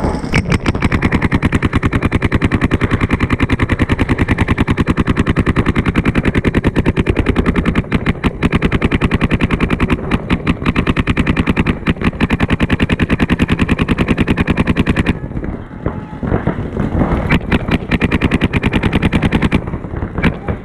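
Paintball markers firing a rapid, steady stream of shots, about a dozen a second. About 15 seconds in it breaks off into scattered bursts and single shots.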